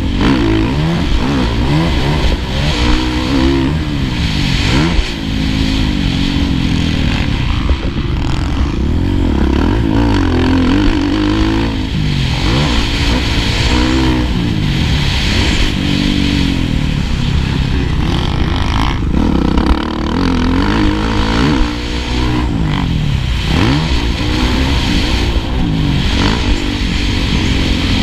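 Kawasaki KX450F's single-cylinder four-stroke engine at racing load, revving up and falling back again and again as the rider accelerates, shifts and rolls off.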